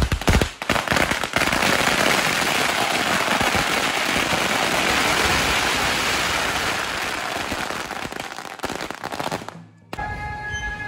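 A heap of red firecracker strings going off: a few separate bangs, then a dense, continuous crackle of rapid explosions for about eight seconds, which thins out and stops near the end.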